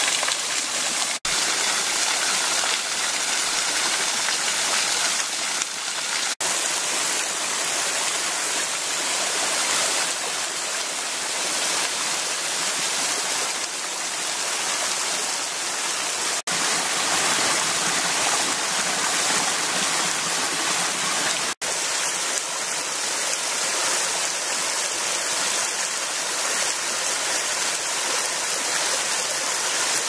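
Small waterfall pouring in thin streams over mossy rock: a steady splashing hiss of falling water, broken by four brief gaps.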